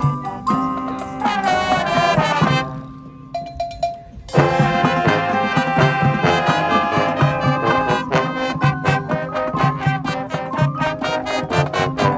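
High school marching band playing: brass chords over a drum line. About three seconds in, the sound drops away to a soft held note. A second later the full band comes back in loudly, with steady percussion hits.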